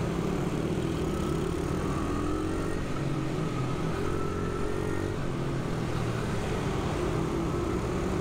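100 cc single-cylinder pit bike engine running hard on the track, its pitch rising and falling a little with the throttle.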